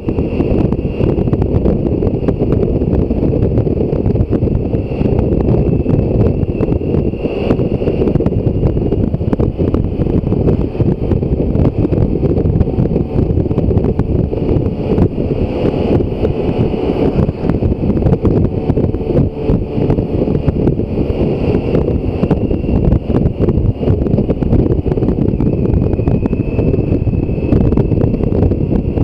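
Steady, loud wind rush buffeting the microphone while riding a BMW K1600 GTL touring motorcycle at road speed.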